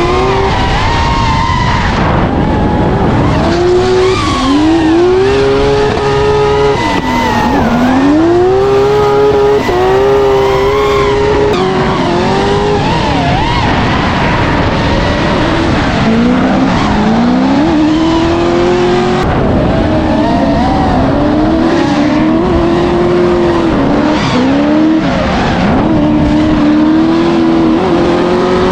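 Drift cars' engines revving hard, their pitch swinging up and down again and again, over a steady wash of tyre squeal.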